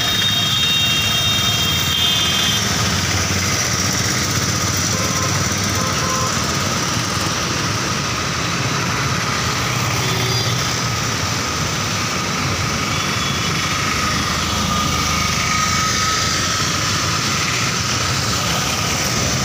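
Steady city street traffic: motorcycles, auto-rickshaws and cars running past on a wet road.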